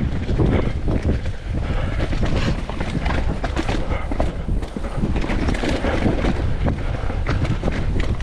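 Mountain bike riding fast down a rough trail: steady wind rumble on the mic, with constant rattling and clatter from the bike and tyres over the ground.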